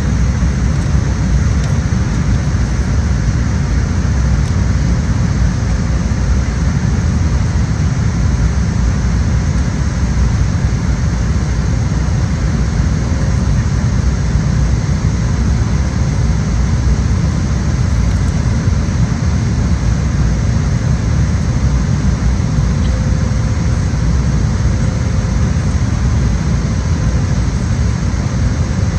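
Steady low rumble of jet engines and rushing air inside an airliner cabin in flight, unchanging throughout.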